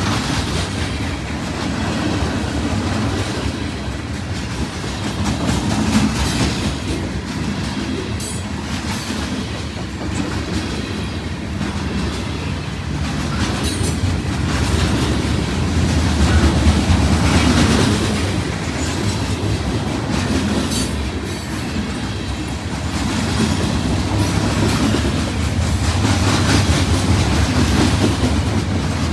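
A train's cars rolling past at close range: a steady rumble, swelling and easing, with wheels clacking over rail joints and a few brief high wheel squeals.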